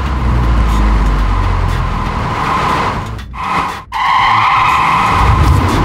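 Cartoon car sound effect: an engine running with tyre-skid noise as a car drives. It breaks off briefly twice a little past three seconds, then carries on louder.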